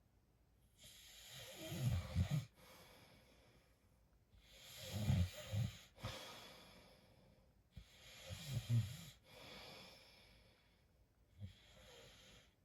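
A man snoring: three loud snores about every three and a half seconds, each a low rattle trailing off into a breathy hiss, then a fainter breath near the end.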